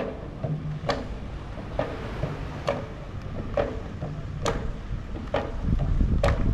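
A drum beaten in a slow, steady beat, about one stroke a second, each stroke sharp with a short falling ring. Wind rumbles on the microphone near the end.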